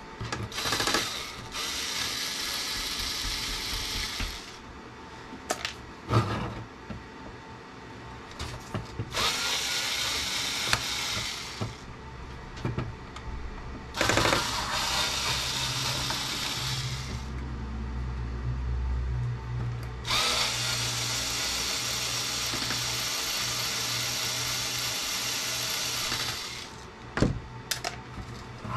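Cordless electric screwdriver running in four bursts, backing screws out of a CB radio's metal case. The last run, near the end, is the longest at about six seconds. A few sharp clicks and taps come between the runs.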